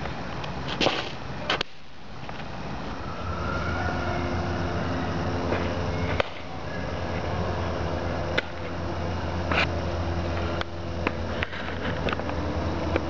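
Pitched softball smacking into a catcher's mitt, a few sharp pops several seconds apart, over a steady low hum.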